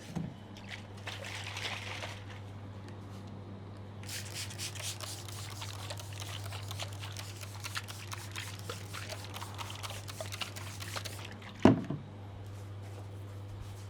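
Wet massage strokes from hands working milk into the scalp and skin, a dense irregular squelching and crackling, heaviest through the middle. Near the end comes a single loud thump.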